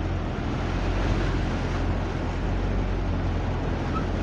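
Floodwater rushing steadily down a torrent bed, a continuous rushing noise over a low rumble.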